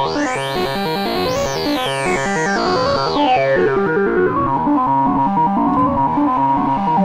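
Make Noise MATHS function generators cycling as oscillators in a Eurorack modular synthesizer, playing a sequenced note pattern through Erbe-Verb reverb. In the first second and a half a bright tone sweeps sharply upward, then slides back down over the next two seconds as the MATHS rise time is modulated.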